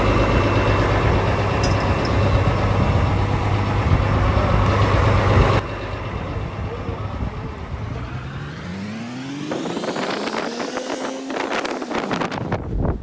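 Fishing boat's engine running steadily with a deep hum, which drops off suddenly about five and a half seconds in. After that an engine pitch rises steadily for a few seconds, with some knocks near the end.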